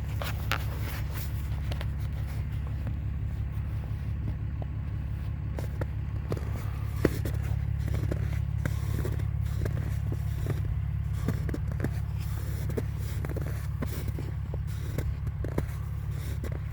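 Steady low rumble of a truck driving slowly, heard from inside the cab, with scattered light clicks and rattles and one sharp tick about seven seconds in.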